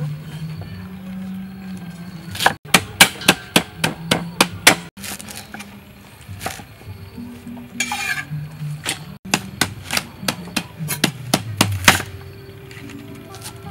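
Cleavers chopping water spinach stems on wooden chopping blocks: quick runs of sharp knocks, about five a second, in two bursts with a few single chops between.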